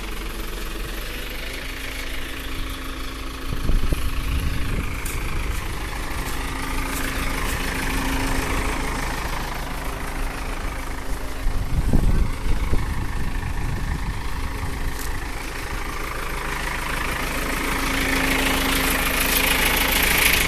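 Backhoe loader's diesel engine idling steadily, with two brief louder low surges, one a few seconds in and one past the middle.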